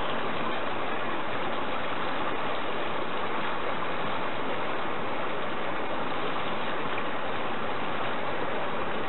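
Steady rushing hiss of a water jet from a hose-fed nozzle spraying against a turbine bucket on a test beam, over the flow of a small stream. The jet is running at full pressure during a thrust test for a home-built micro-hydro turbine.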